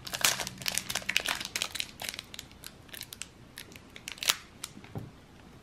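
Wrapper of a basketball trading-card pack crinkling and crackling as it is slowly peeled open by hand, with a dense run of crackles at first that thins out, and one sharper crackle about four seconds in.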